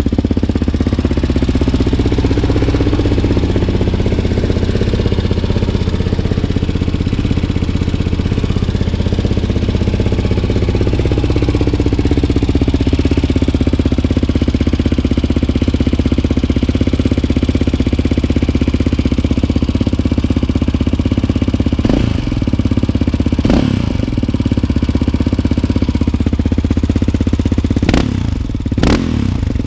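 Yamaha Raptor 700R quad's single-cylinder four-stroke engine running through a Big Gun EXO full exhaust after a cold start; the owner says it is running a little rich. Over the first dozen seconds the idle speed rises and falls back, and near the end the throttle is blipped in four quick revs.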